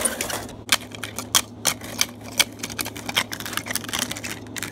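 Model train rolling along sectional track, with an irregular run of sharp clicks and clatter from its wheels on the rails.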